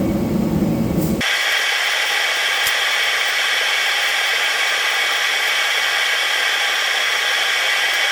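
Steady hiss of air escaping from a small implement tire's inner tube that has been punctured while mounting. It starts abruptly about a second in, after a lower rumbling noise.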